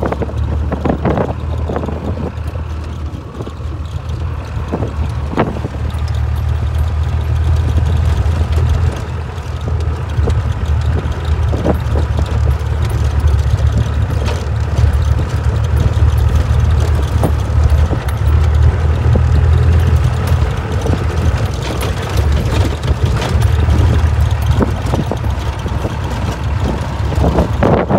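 Classic Land Rover's engine running with a steady low drone, heard from inside the cab while driving over a desert dirt track, with a few brief knocks as the vehicle jolts.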